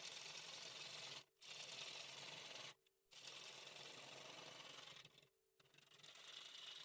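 Wood lathe turning a red oak bowl blank, a gouge cutting with a steady hissing, scraping sound over a faint motor hum. It breaks off briefly three times.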